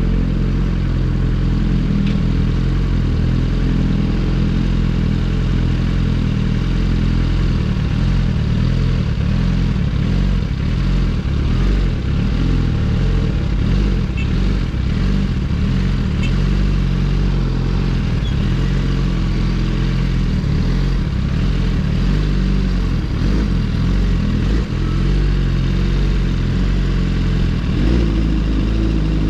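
Suzuki GSX-R1000R's 999 cc inline-four running through an M4 full exhaust system while being ridden, its note shifting in pitch in steps.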